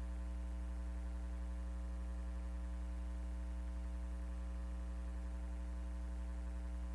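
Steady low electrical hum with a buzzy stack of overtones, unchanging throughout, typical of mains hum in a recording chain with no program audio.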